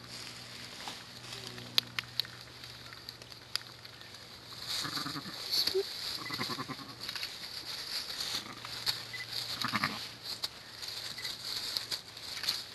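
Sheep bleating softly: a few short, low calls about five to seven seconds in and again near ten seconds, from a ewe with her newborn twin lambs. Scattered small clicks and rustles of dry leaves sound in between.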